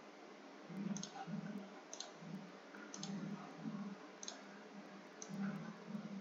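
Computer mouse button clicking faintly, a series of short clicks, several in quick pairs, as lines are placed and bent with the curve tool in a paint program.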